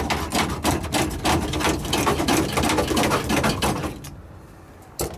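Rapid run of metallic scraping clicks from a screwdriver working against sheet metal under a truck's dashboard, going for about four seconds and then stopping, with one sharp click near the end.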